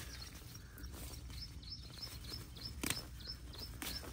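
A small bird chirping over and over, short high chirps several times a second, over a low outdoor rumble. A couple of sharp clicks come in the last second or so.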